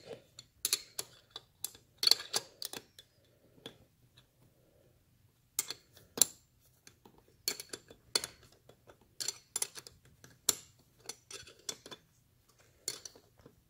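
Irregular small metal clicks and taps of tools and parts being handled while the side cover and banjo fuel-line fitting go onto an Amal Mk 2 carburettor.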